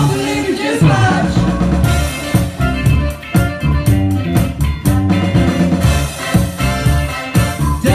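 Upbeat funk band music: drum kit, bass and guitar playing a driving groove, with a little singing in the mix.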